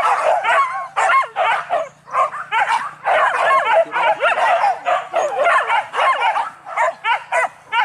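A pack of hunting dogs yelping and baying without pause, many high calls overlapping, as they chase a wild boar through the brush.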